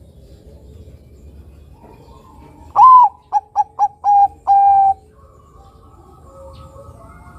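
Bangkok-strain zebra dove (perkutut) cooing one song phrase about three seconds in. The phrase opens with a long note, runs into three quick short notes and ends with two longer held notes, about two seconds in all.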